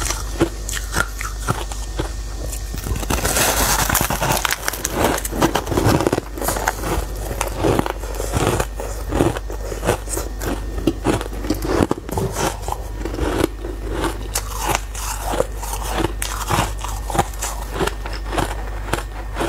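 Shaved ice being bitten and chewed close to a clip-on microphone: a continuous, rapid crackling crunch of ice crystals, loudest from about three to six seconds in.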